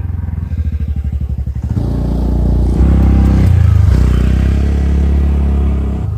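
Small motorcycle and scooter engines riding past on a road: a low, pulsing engine note grows louder and is loudest about three to four seconds in, as a scooter passes close, then eases off a little.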